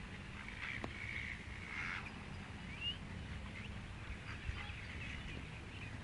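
Wild ducks quacking faintly on a pond, with a few calls in the first two seconds and a short rising call about three seconds in.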